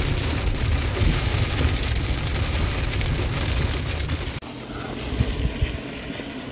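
Car interior while driving on a wet road in hail and rain: a steady low rumble from the engine and tyres, with a hiss of rain and hail on the windscreen. About four seconds in, this cuts off abruptly to a quieter outdoor background with light wind.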